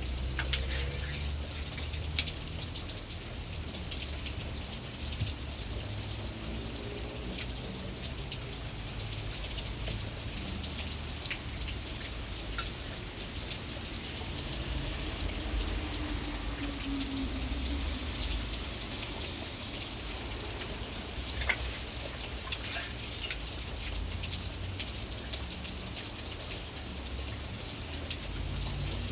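Heavy rain pouring down, with many sharp drops tapping on surfaces close by.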